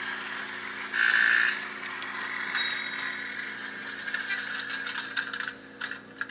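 HO-scale model trains running on the layout: a steady low hum with a whirring rattle from the running trains. A brief loud sound comes about a second in, a sharp click about two and a half seconds in, and uneven rattling clicks near the end.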